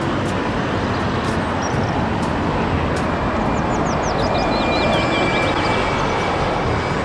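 A red double-decker city bus passing close by on a street, a steady wash of engine and traffic noise. A few short high chirps come about halfway through.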